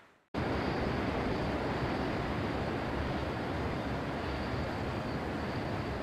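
Steady outdoor urban background noise, an even rushing hum like distant traffic, with a faint high whine. It starts abruptly a moment in, after a brief silence.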